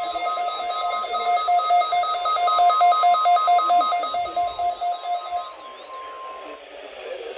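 NOAA Weather Radio warning alarm tone with weather radio receivers alerting: a steady tone with a rapid beeping over it, about four beeps a second, and a warbling tone higher up. The beeping stops about five and a half seconds in, and the steady tone about a second later.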